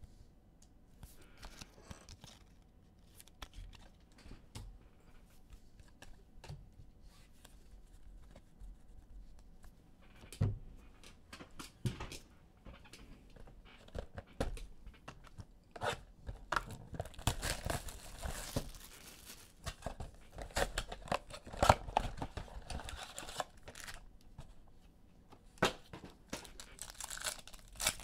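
Foil trading-card pack wrappers being torn open and crinkled by hand, with cards shuffled and handled: scattered rips, rustles and clicks, sparse at first and busier in the second half.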